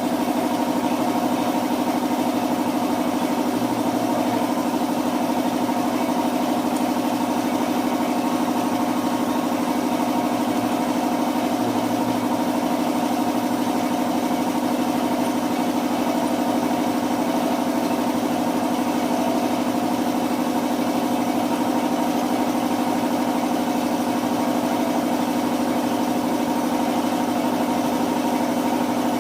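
A steady machine hum at one unchanging pitch, holding constant throughout.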